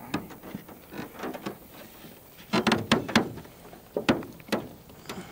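Sharp knocks and slaps from unhooking and handling a largemouth bass in a boat, loudest in a quick cluster about two and a half seconds in, then two or three single knocks.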